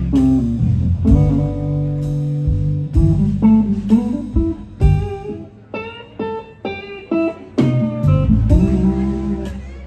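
Live blues band with a Telecaster-style electric guitar playing lead phrases and held chords over bass. The middle turns quieter, with short, sparse high notes, before the full sound returns near the end.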